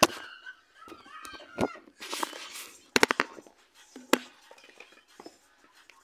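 A string of sharp knocks and clicks: single ones near the start and later, and a quick cluster of three or four about halfway through, with a brief rustling noise just before the cluster.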